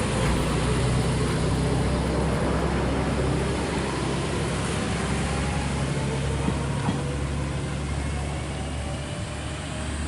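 Amagi Railway diesel railcar running, a steady low engine drone under rumbling noise, with a faint whine that slowly shifts in pitch.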